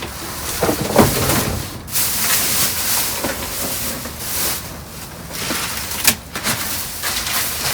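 Plastic trash bags rustling and crinkling as they are pulled and tear, with a few knocks of things shifting in the dumpster.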